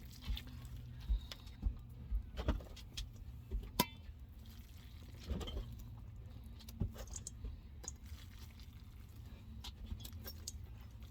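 Scattered light clinks and knocks, with one sharp ringing clink about four seconds in, over a faint steady low hum.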